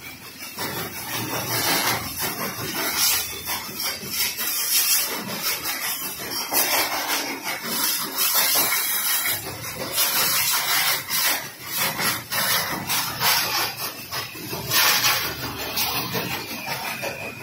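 High-pressure washer jet spraying water onto a motorcycle: a loud, steady hiss of spray that swells and eases as the jet is swept over the bodywork and wheels.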